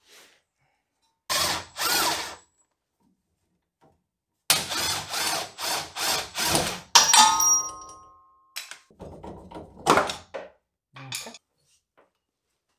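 Tools at work on a tight suspension knuckle bolt. Two short bursts come first, then a run of rapid mechanical strokes that ends in a metal clank, ringing briefly about seven seconds in, followed by a few scattered knocks.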